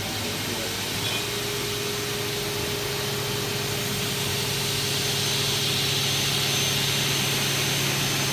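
Motors of a double-head aluminium cutting saw running, with saw blades spinning: a steady hum and whine, plus a hiss that swells slightly toward the middle.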